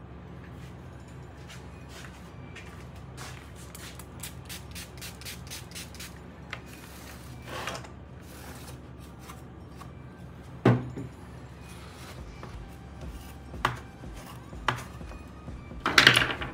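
A mechanical keyboard being cleaned and handled: a run of light plastic clicks and taps, a brief rubbing scrape, then a few sharper knocks, the loudest near the end.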